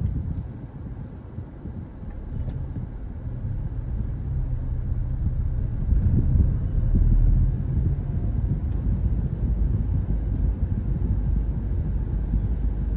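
A car driving: low, steady rumble of engine and road noise, swelling about six seconds in.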